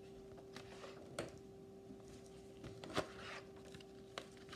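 Paper rustling and a few soft knocks as a hardcover picture book is handled and its pages turned, the loudest knock about three seconds in, over a faint steady hum.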